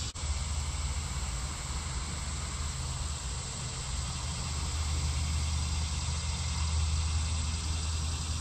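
Steady low engine rumble of road traffic, growing a little louder toward the middle, over a faint even outdoor hiss.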